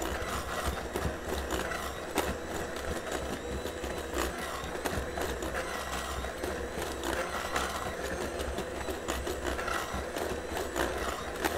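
Electric hand mixer running steadily, its beaters whipping thick royal icing in a glass measuring cup, with many small clicks over a low motor hum.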